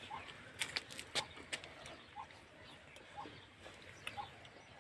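Faint short bird calls repeated about once a second, with a few sharp clicks and taps in the first second and a half.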